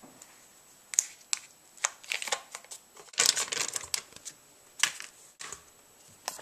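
Kitchen things being handled at a mixing bowl as butter and sugar are readied for creaming: scattered light clicks and knocks, with a short rustling patch about three seconds in.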